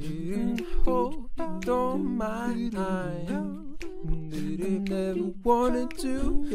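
Music: a singing voice with vibrato over low held notes, with no clear words.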